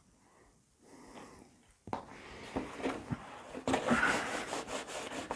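Kitchen paper towel damp with lighter fluid rubbed along the edge of a cardboard box to lift old tape glue residue. It is a soft, scratchy rubbing with small crackles that starts about two seconds in and grows louder near the end.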